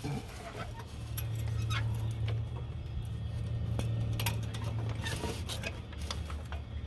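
Scattered metallic clicks and clinks of a hand ratchet and tools working on a car's starter bolts, over a steady low hum.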